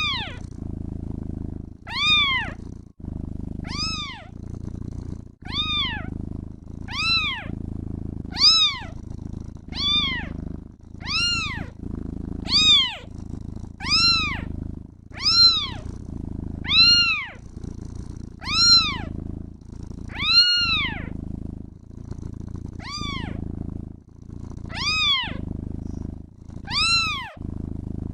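Kitten meowing over and over, each meow rising then falling in pitch, about one every one and a half seconds, over a continuous low purring.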